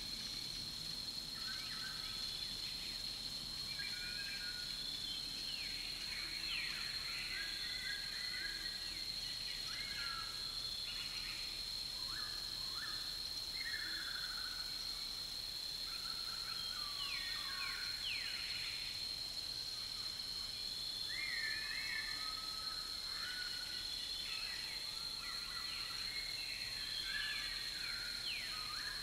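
Several birds chirping and calling in short, quick phrases, over a steady high-pitched insect drone.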